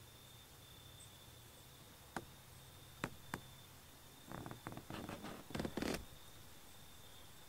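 Quiet outdoor background with a faint steady high-pitched tone, broken by a few sharp clicks and then, from about four seconds in, roughly two seconds of rustling and crackling.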